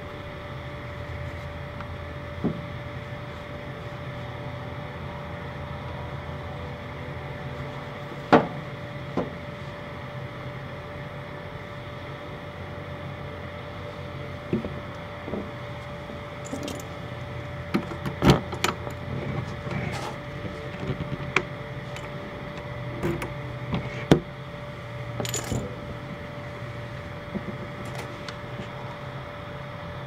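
Scattered sharp clicks and knocks from an RV baggage compartment door and its latch as the door is pushed shut, pressed and lifted open again, over a steady low hum. The latch is not quite catching on the door jamb.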